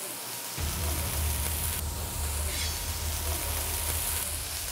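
Water poured onto a hot, oily grill, hissing and spattering hard as it hits the hot oil. A low rumble runs underneath from about half a second in.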